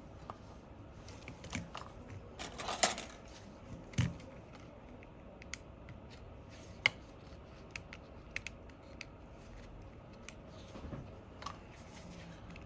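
Scattered small sharp clicks and taps from tiny phone screws and a small screwdriver being handled and set down on a work mat, a few ticks every second or two with a short cluster near the start.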